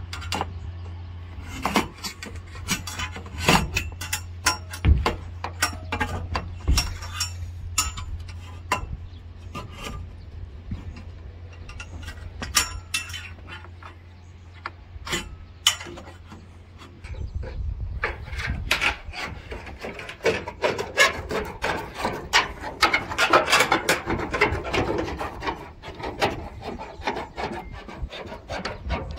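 Steel roof flashing and corrugated roof sheets being handled: repeated clanks, taps and scraping of metal on metal, turning into denser, continuous scraping in the second half.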